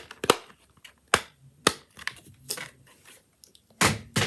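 Fidget toys being handled and pressed: about six irregular sharp clicks and pops, the loudest near the end.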